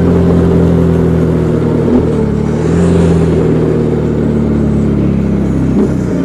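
Motorcycle engine running under way while riding. The engine note drifts slowly and dips briefly twice, about two seconds in and again near the end.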